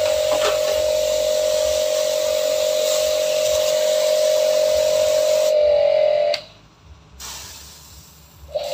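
Mollar HPW500 500-watt electric pressure washer running, a steady high hum from its motor and pump with the hiss of water jetting from a brass nozzle. About six seconds in the hum wavers and then cuts off. It starts again abruptly just before the end.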